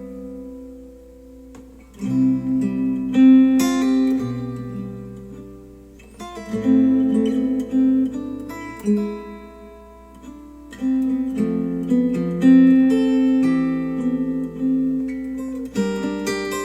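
Acoustic guitar strumming chords, each left to ring and fade before the next is struck, played back through Polk Audio R200 bookshelf speakers driven by a NAD C 338 integrated amplifier.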